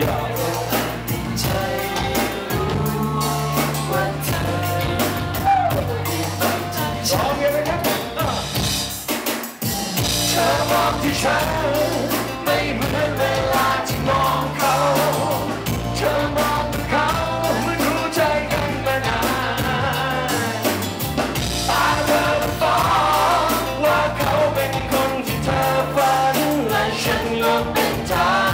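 Live band performance of a Thai pop song, with drums and a steady repeating bass line under a male vocalist singing into a microphone. The music drops out for a moment about nine seconds in, then picks up again.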